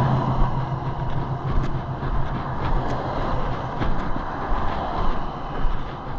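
Road traffic: vehicles passing, a steady wash of tyre and engine noise that swells and fades, with a few light clicks.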